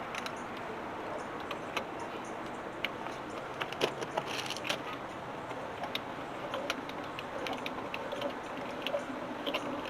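Hand-cranked 58:1 torque multiplier being turned on a truck lug nut to break it loose: scattered light metallic clicks and rattles over a steady background hiss.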